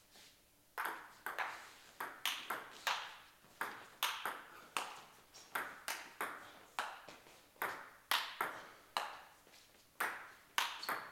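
Table tennis rally: a celluloid ball clicking sharply off the bats and bouncing on the table, about two strikes a second with a short echo after each. It is a long rally between a bat with short attacking pimples and one with long defensive pimples, played back from the table.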